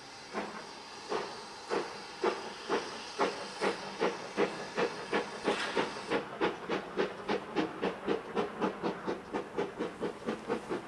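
Exhaust beats of GWR 4575 class prairie tank locomotive 5541 working hard as it gets away, the chuffs quickening from about two a second to four or five a second. A hiss of steam runs under the beats and eases about halfway through.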